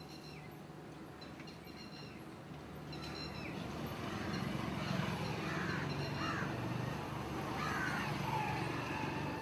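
Wild birds calling: a short, hooked call repeated several times in the first few seconds, then more calls over a low traffic rumble that swells about four seconds in.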